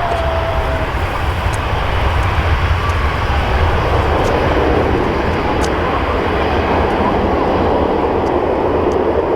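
Jet airliner engines passing nearby with a steady roar that grows louder about four seconds in and then holds.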